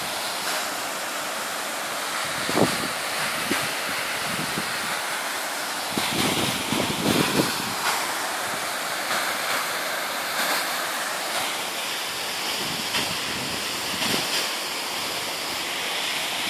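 Waterfall's steady rushing hiss of falling water, with a few brief louder surges about a third of the way in and around the middle.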